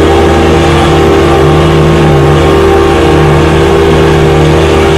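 Vacuum cleaner running steadily, its motor giving a loud, even hum.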